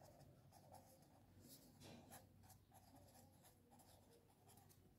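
Faint scratching of a ballpoint pen writing on a notebook page, in short irregular strokes.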